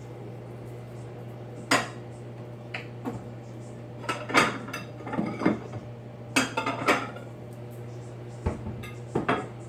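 Kitchenware being handled: a series of sharp clinks and knocks of dishes and utensils, in small clusters, over the steady low hum of a running microwave oven.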